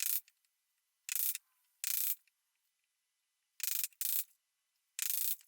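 A boring bit cutting into beech in six short bursts of about a third of a second each, with silence between: the socket being finished from the other side of the workpiece.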